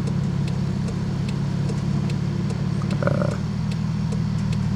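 Car engine and road noise droning steadily inside the cabin while driving, with an even ticking about two to three times a second and a brief higher-pitched sound about three seconds in.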